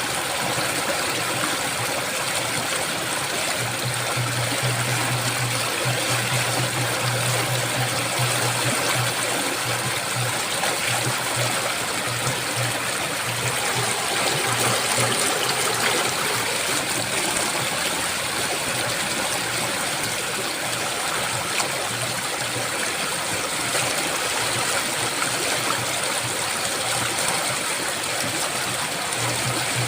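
Flowing water rushing steadily, an even hiss with no breaks. A low steady hum sits under it for several seconds early on and returns near the end.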